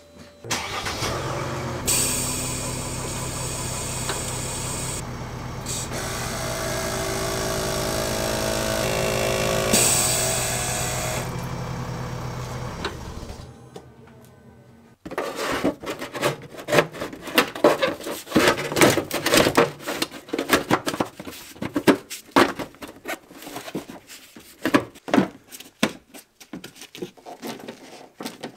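Mercedes W212 Airmatic suspension air compressor running with a steady hum and whine for about thirteen seconds, swelling and then fading out. Then a quick run of irregular clicks from a hand tool working the screws of the plastic undertray.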